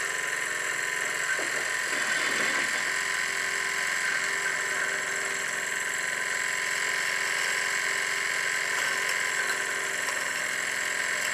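Krick Victoria model live-steam plant in steam: its small steam engine running steadily with the burner firing under the vertical boiler. The sound is even and continuous, with a steady high tone over the running noise.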